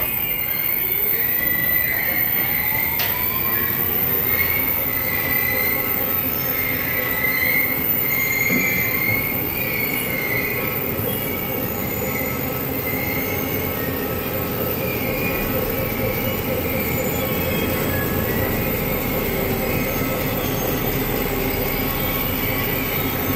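2012 CP Manufacturing sorting machine's conveyors and disc screen running. A motor's whine rises in pitch over the first few seconds as it comes up to speed, then settles into a steady mechanical din with a high, wavering squeal.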